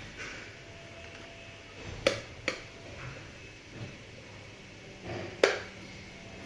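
Plastic vacuum cleaner parts being handled and fitted back together. There are two sharp clicks about two seconds in, half a second apart, and a louder click near the end, with soft handling noise between them.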